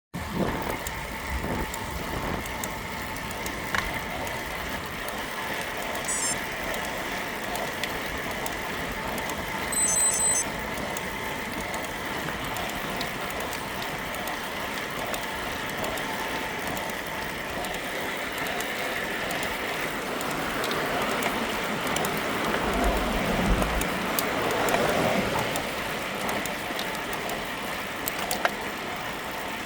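GMC Canyon pickup running and making a noise: a steady whine over a rushing hiss. The whine fades about two-thirds of the way through as the hiss grows louder.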